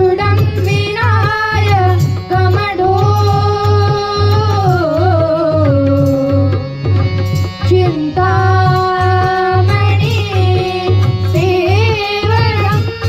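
A boy singing Marathi mangalashtak wedding verses in a long, ornamented melodic line, with instrumental accompaniment over a pulsing low drum beat.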